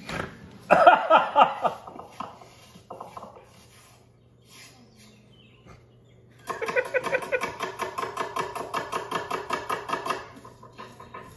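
Brief laughter from two men about a second in. Later, a rhythmic scraping of about five strokes a second as spices are ground by hand on a flat stone grinder. It stops shortly before the end.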